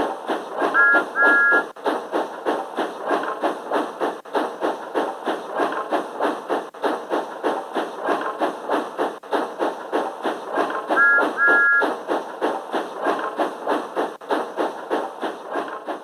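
Small steam tank engine chuffing steadily at about four puffs a second, with a short two-toot whistle about a second in and again about eleven seconds in.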